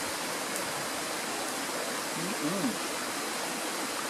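Small woodland stream running over rocks, a steady rush of water. About two seconds in, a man gives a short low hum.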